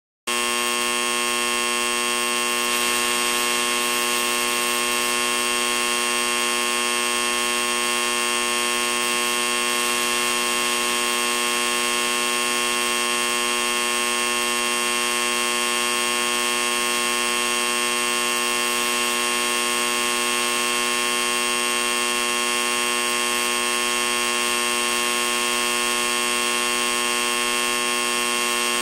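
A steady, unchanging buzzing drone made of many held tones at once, cutting in abruptly at the start.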